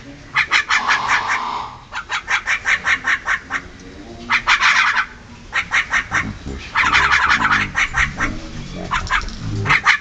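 Javan mynas chattering: runs of rapid, harsh, repeated notes, about seven a second, coming in bursts of a second or so with short breaks between them.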